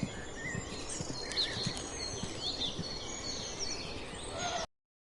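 Outdoor ambience of birds chirping over a steady background hiss, cutting off suddenly near the end.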